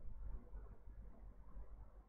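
Faint low rumble and room noise from an open microphone, uneven in level.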